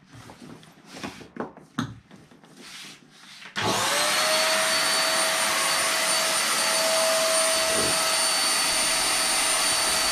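A few light clicks and handling rustles, then about three and a half seconds in an electric air pump switches on. Its whine rises briefly as the motor spins up, then it runs loud and steady with a constant whine, inflating the PVC boat's air chambers.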